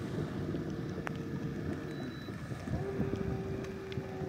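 Wind on the microphone and water noise aboard a small fishing boat, with a faint steady hum from a motor.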